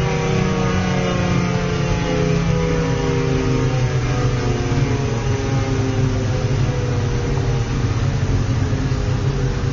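Tornado siren with its chopper at level 1, sounding a steady multi-tone wail over a strong motor hum.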